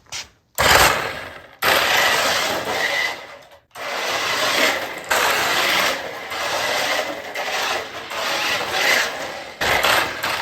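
Volantex 1:14-scale electric RC drift car driving on rubber tires, its tires scrubbing and sliding on the ground in stop-start bursts of all-or-nothing throttle, with a faint high motor whine.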